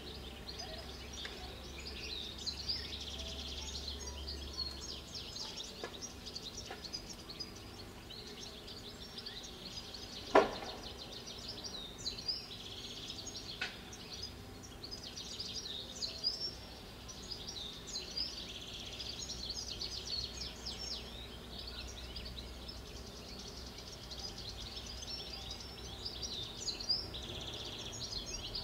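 Outdoor birdsong, many chirps and trills going on throughout, with one sharp knock about ten seconds in and a few fainter taps from work on a roof downpipe.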